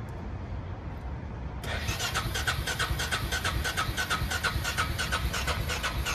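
Electric starter cranking the Suzuki King Quad 400ASi's single-cylinder engine in a fast, even rhythm for about five seconds, starting about a second and a half in, without the engine catching. The ATV is listed as not running because of a fuel pump issue.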